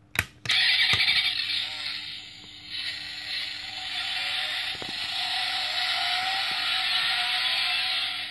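A die-cast Mustang GT toy car's built-in sound module, set off by a click as its bonnet is shut, plays a tinny recorded engine sound through its small speaker. The sound rises slowly in pitch over the last few seconds and cuts off suddenly.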